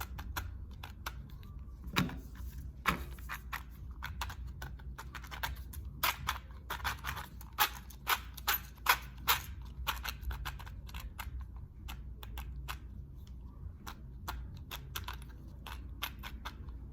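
Irregular clicks and taps from hands working on an RC car's motor and gears while the pinion-to-spur gear mesh is checked. The clicks come thickest between about five and ten seconds in, over a low steady hum.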